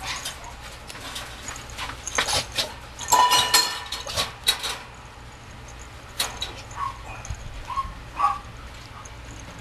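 Mame shiba puppy playing and mouthing, giving short high yips and little whimpers amid scuffling clicks and rustles, with a clear yip about three seconds in and a few small ones near the end.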